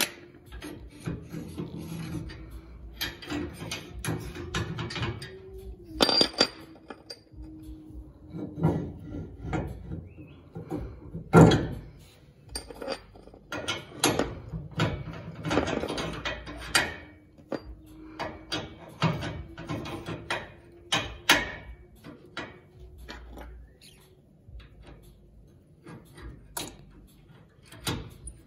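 Steel pins, padlock and sliding ball-mount plate of a tow-hitch drop plate being handled: irregular metal clicks, clanks and scrapes as the height is adjusted, with the loudest clank about halfway through.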